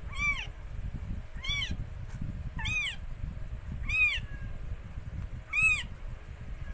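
Newborn kitten mewing: five short, high-pitched cries, each rising and falling in pitch, repeated every second or so.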